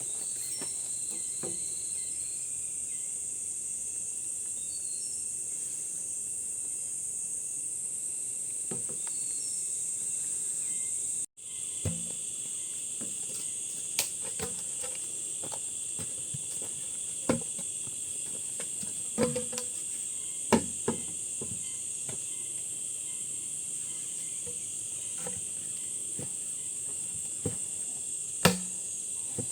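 Steady high-pitched drone of an insect chorus, with a few short knocks or taps here and there.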